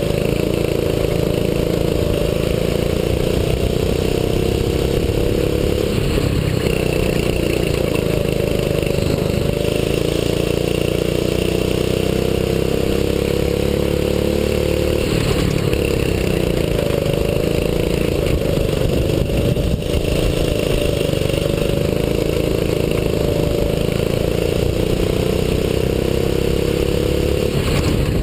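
A 6.5 hp single-cylinder four-stroke kart engine, heard on board at race pace. Its revs climb steadily along each straight and drop sharply as the driver lifts for a corner: about six seconds in, about fifteen seconds in, and near the end.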